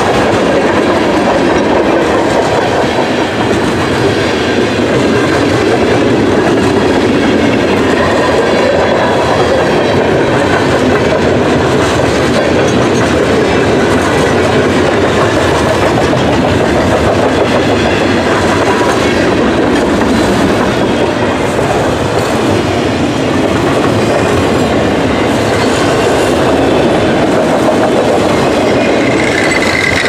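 Freight train cars (boxcars, tank cars and autoracks) rolling past close by: a loud, steady rumble and clatter of steel wheels on the rails.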